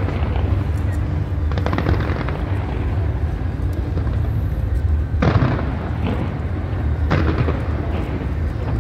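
Aerial fireworks bursting over a continuous low rumble, with sharp bangs about two, five and seven seconds in, each trailed by crackling.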